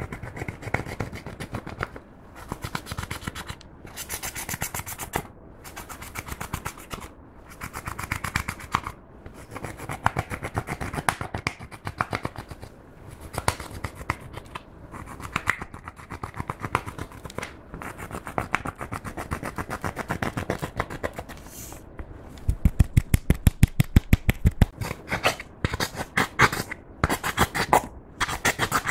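Pressed eyeshadow being crushed and scraped out of a plastic palette with a plastic stick: repeated dry scratching and crumbling strokes. About two-thirds of the way in comes a quick run of loud, sharp taps.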